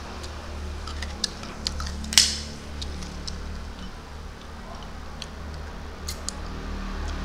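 Close-up eating sounds of small shrimp eaten by hand: scattered mouth clicks and lip smacks as he chews. One sharper, louder sound comes about two seconds in, over a steady low hum.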